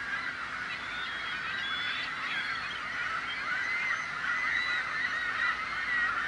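Many gulls calling at once: short, arching calls overlap in a continuous din.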